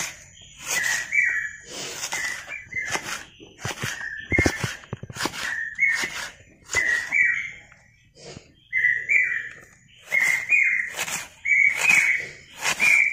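Kitchen knife chopping red onion on a wooden board, with quick sharp chops a couple of times a second and a short pause about two-thirds of the way through. Most chops are followed by a short high note that rises slightly.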